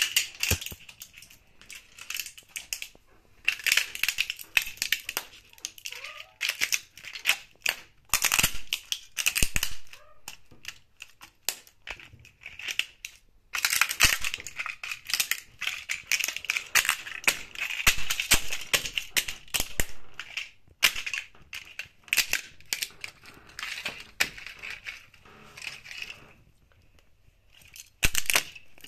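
Plastic model airplanes cracking and snapping as they are crushed underfoot by espadrille wedge sandals: dense runs of sharp cracks and crunches, broken by a few short pauses.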